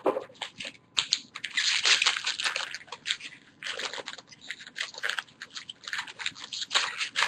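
Crinkling and rustling of a baseball card pack's wrapper and cards being handled: many short crackly strokes, densest about two seconds in.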